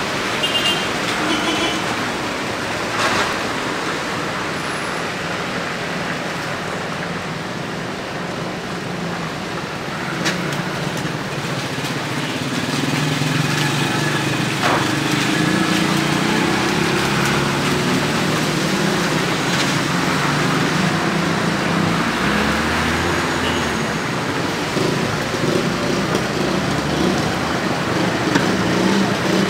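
Slow road traffic passing close by on a wet, broken street: car and van engines and tyres, with a motorcycle among them. The engine hum grows louder in the second half.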